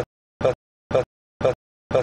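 Stuttering playback glitch: the same split-second snippet of sound repeats about twice a second, with dead silence between the repeats.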